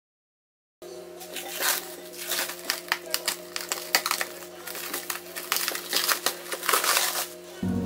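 Plastic cling wrap crinkling and crackling as it is peeled off a glass bowl of rested dough, starting about a second in, with many quick crackles over faint steady tones.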